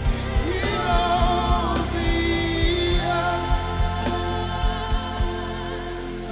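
Live gospel worship music: wordless singing over a sustained bass and a steady drum beat.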